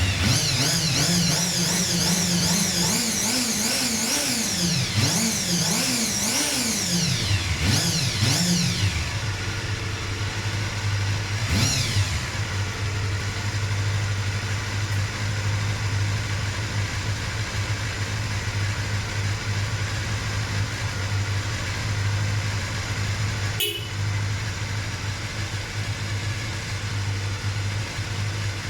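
Honda Jade 250 inline-four engine revved up and down in quick throttle blips, then settling to a steady idle. A single sharp click near the end.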